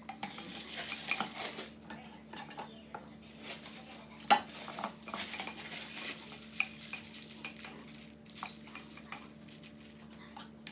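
Wooden spatula stirring and scraping buttercream frosting in a stainless steel mixing bowl: irregular scrapes and clinks, with one sharp knock about four seconds in.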